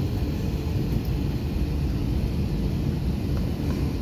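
Steady low rumble heard inside the cabin of an Airbus A321 taxiing, from its jet engines at low thrust and its wheels rolling over the pavement.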